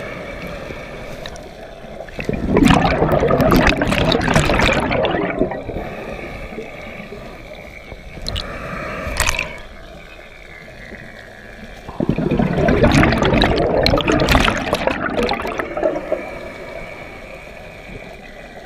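Scuba regulator exhaust bubbles heard underwater: two long bubbling bursts of exhaled air about ten seconds apart, the rhythm of a diver's slow breathing, quieter between.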